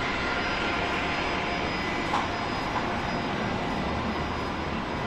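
Jet airliner engines running, a steady, even noise with a faint high whine.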